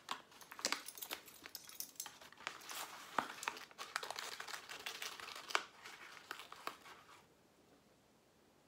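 Foil-lined powder packet crinkling and tearing as it is handled and opened, a dense crackle of small clicks that stops about seven seconds in.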